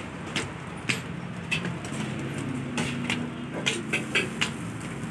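Flat metal spatula striking a large flat metal griddle while parathas are chopped and turned on it: about nine sharp, irregular clacks over a steady low background din.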